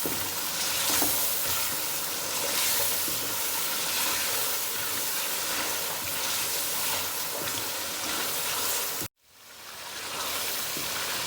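Potato pieces frying in oil and spiced onion-tomato masala in a pot, with a steady sizzle as they are stirred. The sizzle cuts out abruptly about nine seconds in, then fades back up.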